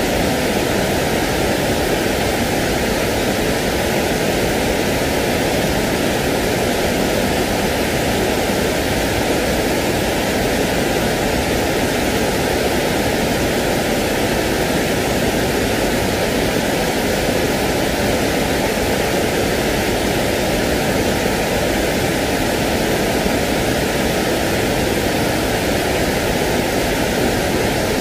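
Steady, even rushing noise of the white-noise kind played to soothe a crying baby to sleep, with no drops, clicks or changes in level.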